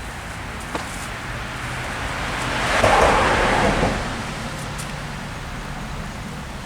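A car passing by, its noise swelling to a peak about three seconds in and then fading away.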